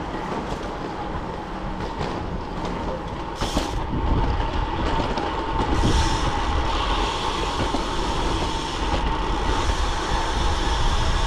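Wind rushing over the camera microphone and tyres rolling on asphalt as a road bike coasts downhill at speed, a steady low rumble with a thin steady hum through it, getting a little louder about four seconds in.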